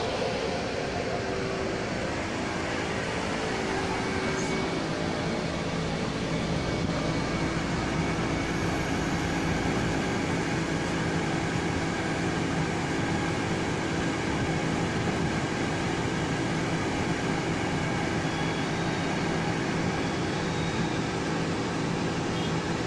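Taiwan Railway commuter electric multiple unit settling to a stop at the platform, then standing with its air-conditioning and onboard equipment humming steadily.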